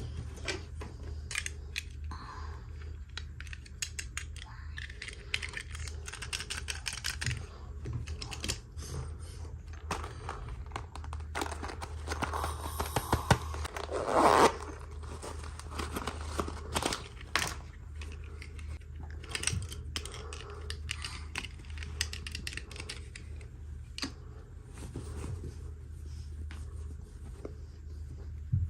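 Toy packaging being handled and opened by hand: rustling, scraping and small clicks of plastic and cardboard, with a louder tearing stretch about twelve to fifteen seconds in.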